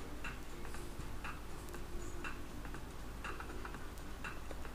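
Faint clock-like ticking, about one tick a second, over a low steady hum: a timer running while the quiz answer is awaited.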